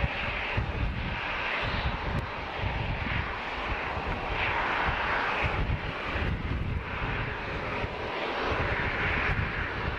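Airbus A350's Rolls-Royce Trent XWB turbofan engines running: a steady rushing jet noise over a low rumble, swelling and easing slightly.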